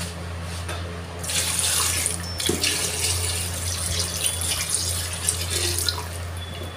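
Broth being poured into a pressure-cooker pot of browned beef, a steady splashing pour starting about a second in, with a short knock of the wooden spoon partway through. A steady low hum sits underneath.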